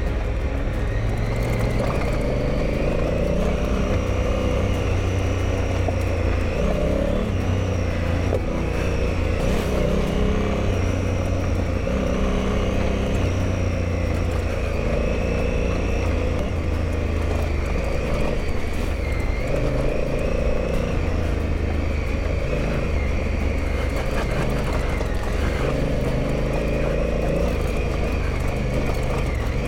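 Adventure motorcycle riding steadily along a gravel road: the engine runs with small rises and falls in pitch, under wind and tyre noise.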